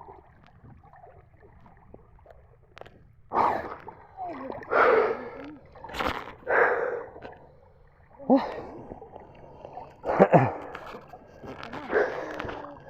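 Water splashing in a series of short bursts, one every second or two after about three quiet seconds, with a few brief breathy voice sounds among them.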